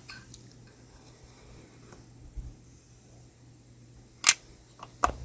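A few sharp clicks or knocks from pieces of wood trim being handled: a small one at the start and a much louder one about four seconds in, over a quiet room with a low hum.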